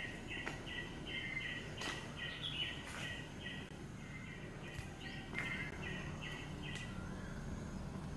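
Rhythmic outdoor chirping, short high chirps about three a second, breaking off about four seconds in and resuming a second or so later, over a faint steady background hum and a few light clicks.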